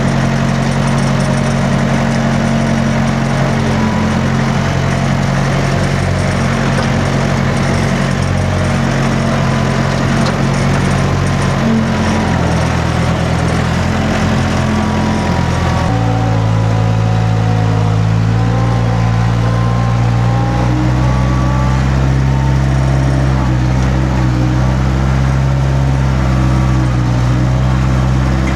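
A vehicle engine running steadily, its speed shifting noticeably about sixteen seconds in.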